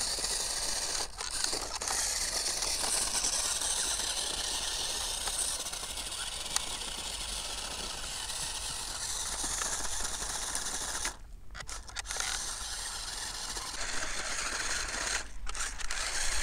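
Toy RC rock crawler's electric motor and gears whirring as its tyres scrabble on loose dirt, struggling for grip on the slope, with two brief pauses about 11 and 15 seconds in.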